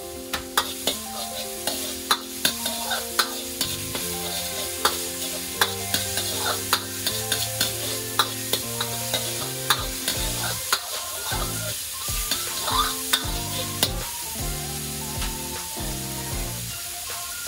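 Ground pork sizzling in oil in an iron wok as a steel wok ladle stirs it, with repeated sharp clinks and scrapes of the ladle against the wok about once or twice a second. Soft background music plays under it.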